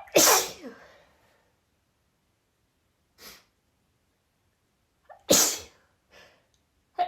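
A woman sneezing twice in a sneezing fit, each loud sneeze preceded by a quick catch of breath, with soft breaths between. Another catch of breath comes at the very end as the next sneeze builds.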